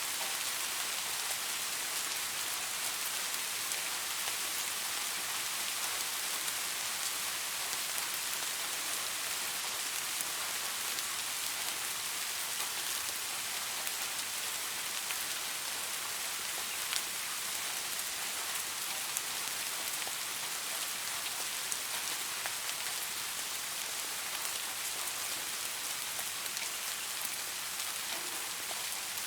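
Steady rain with individual drops ticking now and then.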